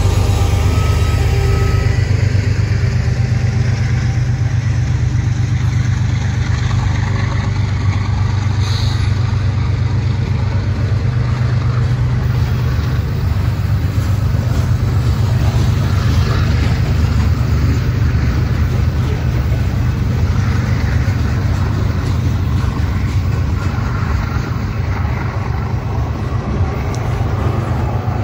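Freight train cars rolling past close by: a loud, steady rumble with rapid clatter of steel wheels on the rails, from covered hoppers and then tank cars. A locomotive's engine hum fades out in the first couple of seconds as it moves away.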